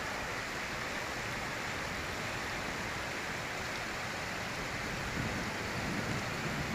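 Heavy rain and rushing floodwater: a steady, even hiss.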